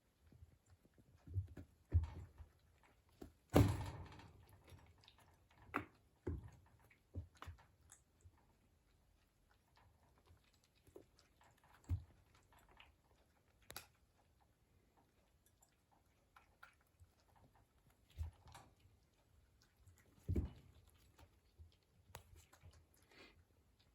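A kitten playing by itself: irregular soft thumps and light clicks as it pounces and bats a toy about. The loudest thump comes about three and a half seconds in.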